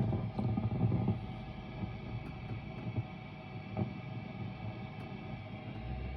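Mesa Boogie Dual Rectifier Multi-Watt tube amp on a gain channel, idling with a steady hum and an irregular crackle like bacon frying, heavier in the first second. The owner suspects the crackle comes from a failing resistor.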